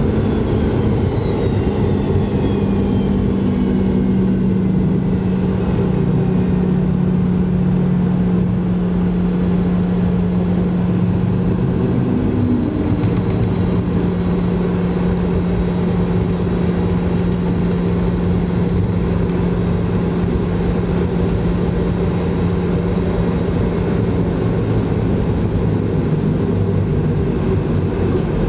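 Inside the cabin of a Boeing 717 slowing after landing. The high whine of its Rolls-Royce BR715 jet engines falls in pitch over the first several seconds as they spool down, under a steady low drone of engine and rolling noise.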